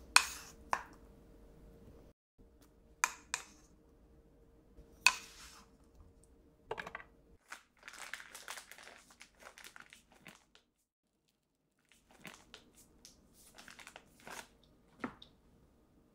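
A few sharp knocks and taps as diced ham and onion are tipped from a bowl onto toast in an enamel tray, then the crinkling and squeezing of a plastic piping bag as sweet potato mousse is piped over the top.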